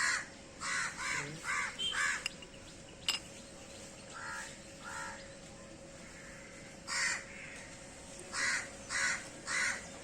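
Crow cawing repeatedly: a quick run of harsh caws in the first two seconds, two lower caws around the middle, then another quick series near the end. A single sharp click about three seconds in.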